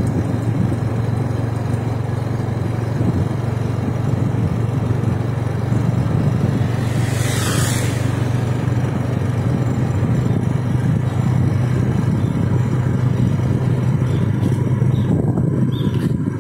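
Engine of a moving vehicle running steadily at cruising speed, with wind and road noise. A short hissing swish comes about seven and a half seconds in.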